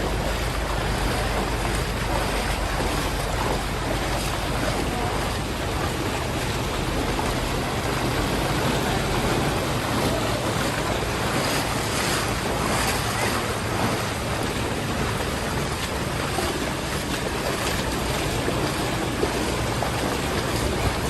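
Steady rushing of fast-flowing floodwater, with a low steady hum underneath.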